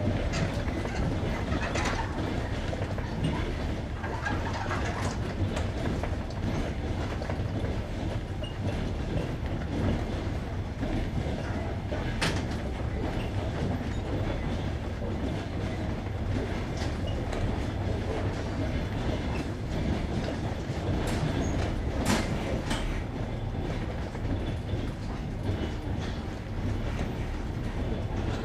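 Passenger train carriage wheels rolling over jointed rail, heard from inside the carriage: a steady rumble with sharp clicks now and then as the wheels cross the rail joints.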